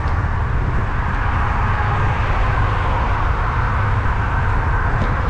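Wind buffeting a bike-mounted microphone while riding, as a steady low rumble, over the even hiss of motor traffic on the highway bridge alongside.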